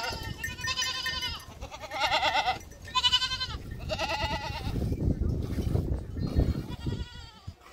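A pen of goats bleating: about five loud, wavering bleats in the first half, then fainter bleats. From about halfway, low rustling and knocking runs underneath.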